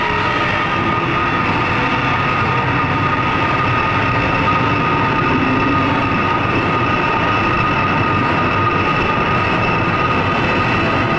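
Jet aircraft engines running steadily: a loud even rushing noise with a high whine held at one pitch.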